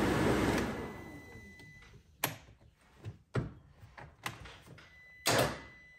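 A steady rushing noise fades out over the first second or so. Then come a string of sharp clicks and light knocks of plastic dash parts and connectors being handled, with a louder knock about five seconds in.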